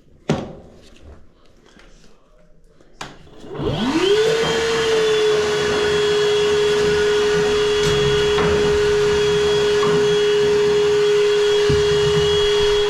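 Vacuum cleaner switched on about three and a half seconds in: its motor whine rises quickly to a steady pitch and runs on with a rush of air. A few knocks and clicks of handling come before it starts.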